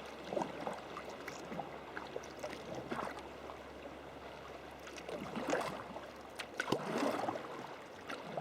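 Water splashing and gurgling around a sea kayak as the paddle dips in, with irregular splashes that grow louder a little past halfway.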